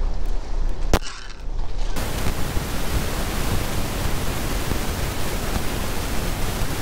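Wind blowing straight onto a microphone that has lost its furry windscreen: an even, loud rush of wind noise that starts about two seconds in. Before it there is a low rumble and a single sharp click.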